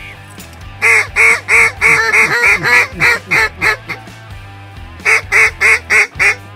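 Mallard duck call blown in two runs of loud quacking notes, about a dozen quick notes, a short pause, then about six more, calling to circling mallards to bring them in. Background music with steady low tones runs underneath.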